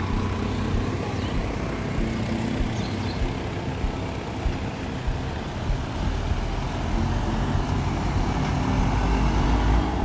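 Road traffic: the engine of a loaded lorry, with a three-wheeler and a motorbike behind it, coming out of the road tunnel. The low rumble grows louder towards the end as they approach.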